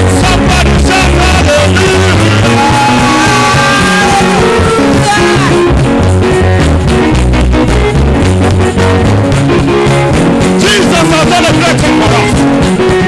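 Loud band music with singing over a strong, steady bass beat.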